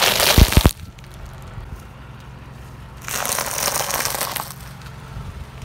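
Car tyre rolling over a pile of peanuts in their shells, cracking and flattening them. A loud crunching burst with two low thumps comes right at the start, then a second, longer stretch of crackling crunches about three seconds in.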